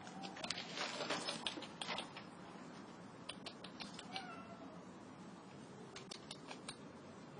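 A cat meows once, a falling call about four seconds in, over a scatter of light clicks and taps.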